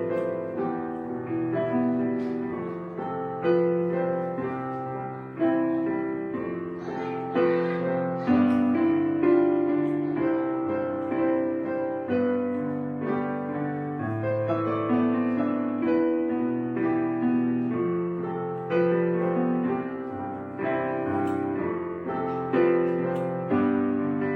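Background piano music: single notes and chords struck and left to ring, a new one every second or so.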